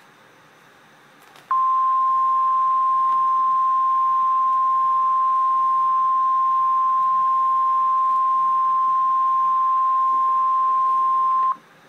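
Emergency alert attention tone: a single steady beep, the 1050 Hz NOAA Weather Radio warning alarm tone, held for about ten seconds. It starts sharply about a second and a half in and cuts off just before the end, signalling that a severe weather warning message follows.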